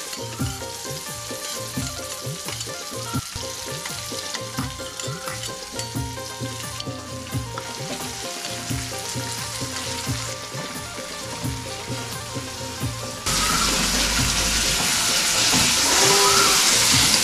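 Chopped onion frying in hot oil in a pan, a steady sizzle with spoon-stirring clicks. About 13 seconds in the sizzle suddenly becomes louder and hissier.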